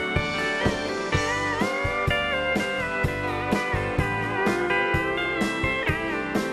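Country band playing an instrumental break: a steel guitar carries the lead with sustained, gliding notes over bass and a steady drum beat.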